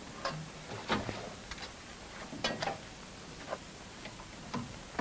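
A few irregular metallic clicks and knocks from the lock levers and foot-firing safety on a 40 mm L/70 anti-aircraft gun mount being worked by hand: the travel locks for elevation and traverse being released before firing.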